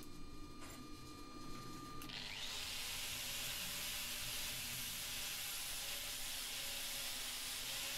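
Angle grinder with a flap disc grinding down a weld on a forged steel handle. The steady grinding hiss of the disc on the metal starts about two seconds in, as the weld seam is being blended into the handle.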